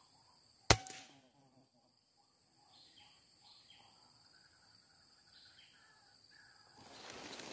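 A single sharp shot from a suppressed PCP air rifle a little under a second in, with a brief ring after it. Faint bird calls follow, then rustling near the end.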